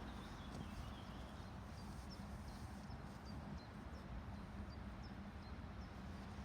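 Quiet outdoor background: a steady low rumble with a faint hum, and a small bird chirping over and over, about twice a second.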